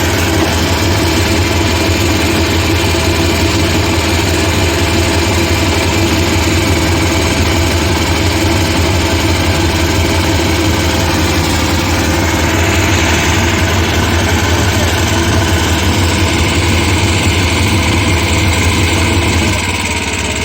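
Engine of road sealcoating equipment running steadily with a strong low hum, easing off slightly near the end.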